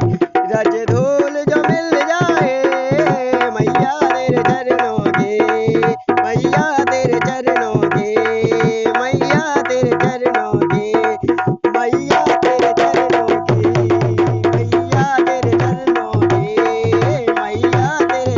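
Dholak drumming: rapid hand strokes with the bass head's pitch bending up and down. The playing grows denser and busier about two-thirds of the way through.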